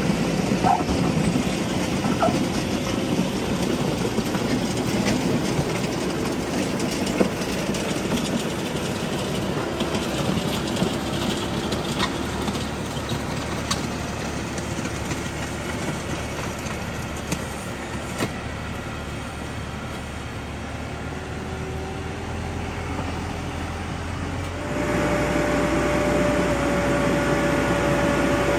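New Holland Workmaster 75 tractor's diesel engine running as the tractor pulls a box blade over a gravel driveway, with scattered ticks of gravel, fading a little as it moves off. About 25 seconds in the engine suddenly gets louder, with a steady whine.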